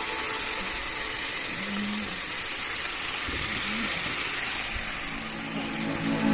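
Chicken livers and onions sizzling in a pot over a gas flame: a steady, even hiss.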